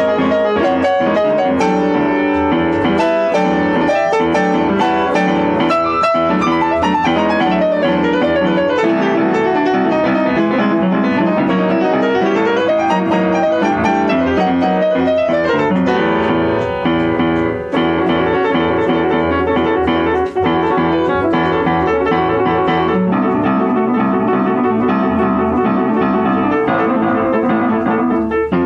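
Yamaha upright piano played in a fast, dense jazz solo: quick single-note runs over chords, with a couple of brief breaks about two-thirds of the way through.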